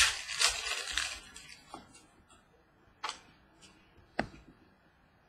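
Trading cards being handled on a wooden table: a rustle of cards sliding against each other for about the first second and a half, then three sharp taps as cards are set down.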